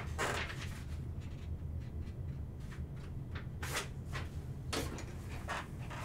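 Short scrapes and knocks of objects being handled, about half a dozen spread irregularly, over a steady low hum.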